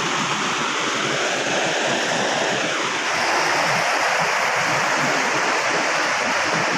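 Steady rushing of a river and its waterfall.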